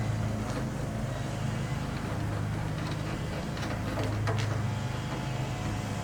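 A few light clicks and taps from door-latch hardware being worked into a truck door, over a steady low hum.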